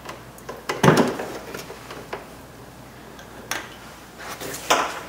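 Plastic clicks and knocks of a wiring harness and its clips being worked loose from a plastic windshield washer fluid reservoir: a sharp knock about a second in, then small scattered clicks and two more knocks near the end.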